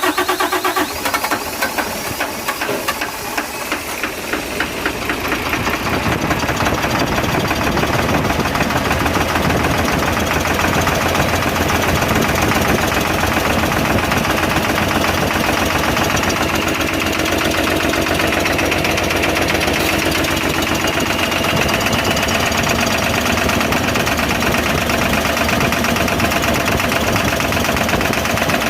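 Nissan Quester CWA 280 truck's diesel engine running steadily just after starting, a dense, even stream of firing pulses.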